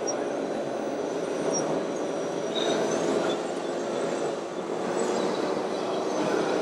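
Radio-controlled scale trucks' electric drive motors and gearboxes running: a steady mechanical whir with a few brief faint high-pitched whines.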